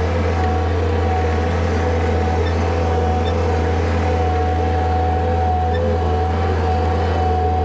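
Farm tractor's diesel engine running at a steady speed, a constant low drone with a steady whine above it.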